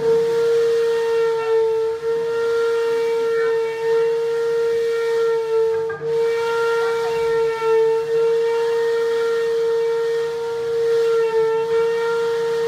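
Electric guitar feedback through the amplifier: one high note held steady and unbroken, with fainter overtones above it.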